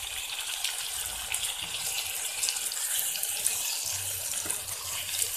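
Hot oil sizzling and crackling in a frying pan, loudened by the wet chopped tomatoes just added to the frying potatoes and onions. A spatula stirs through the pan about four seconds in.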